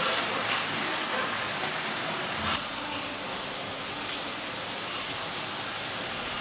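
Steady mixed hum and rail noise of OO gauge model trains running on a layout in a large hall, with faint background voices. There is a short knock about two and a half seconds in, after which the sound is a little quieter.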